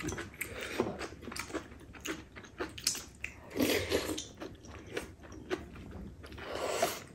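Close-up eating sounds: chewing and small clicks of chopsticks and spoons against bowls. Twice there is a longer slurp, with seaweed soup sipped off a spoon, about three and a half seconds in and again near the end.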